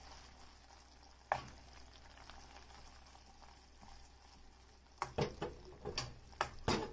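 Hot caramel with a knob of butter bubbling and sizzling in a stainless-steel saucepan as the pan is swirled off the heat. There is a single sharp knock about a second in, and a quick run of about six knocks in the last two seconds, which are the loudest sounds.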